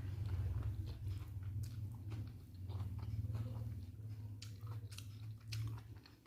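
A person chewing and biting food close to the microphone, with scattered short mouth clicks and smacks, over a steady low hum.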